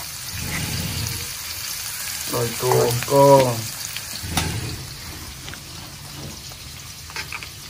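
Sliced petai beans, tomato, chili and shallots sizzling steadily in oil in an aluminium wok over a gas flame, with a single sharp knock about halfway through.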